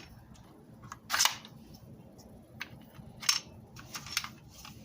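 A handful of sharp plastic clicks and knocks from handling a Craftsman Pushfire heavy-duty staple gun, the loudest about a second in.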